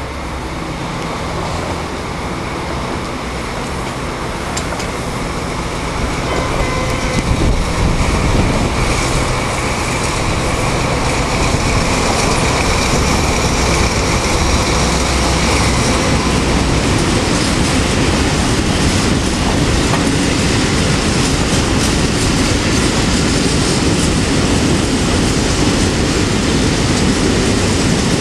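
Short freight train of covered hopper wagons rolling past close by, with wheels clattering over the rail joints and some wheel squeal. In the first several seconds a low, steady diesel locomotive engine note is heard. The noise grows louder over the first eight seconds or so as the wagons come alongside.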